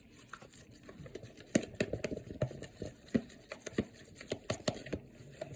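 A glue, water, baking soda and slime-activator mixture being stirred in a bowl as it starts to set into slime, giving a run of irregular soft clicks, taps and sticky squelches.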